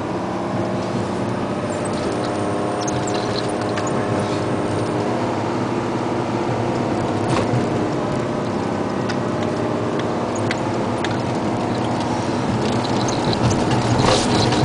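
Isuzu Giga dump truck's diesel engine running steadily as it drives along a gravel road, with scattered clicks and rattles over the engine note, more of them near the end.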